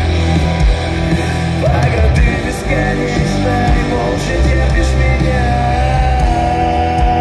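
Live rock music: a band with distorted electric guitars, bass and drums, backed by a string section of cellos and violins, playing an instrumental passage. A long held note comes in about five seconds in.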